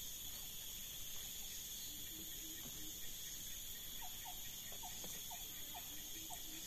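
Steady high-pitched drone of insects, with a run of short chirps starting about four seconds in.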